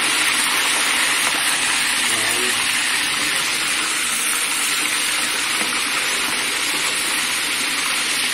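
Flour-coated fish deep-frying in a wok of hot oil, with a loud, steady sizzle from the bubbling oil.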